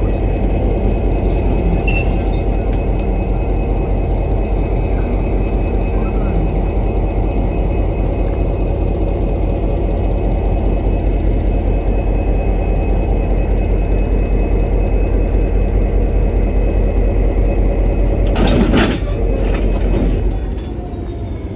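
V/Line N-class diesel-electric locomotive running close by with a steady, loud low rumble. About two seconds in there is a brief high-pitched squeal, and near the end a short burst of hiss.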